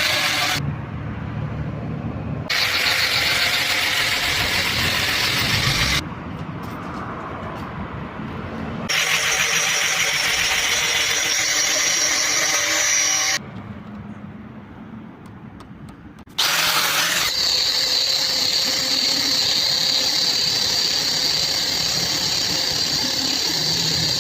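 A power tool grinding and shaping stone, in several bursts that switch abruptly between louder and quieter passes. In the later part a steady high-pitched whine sits over the grinding noise.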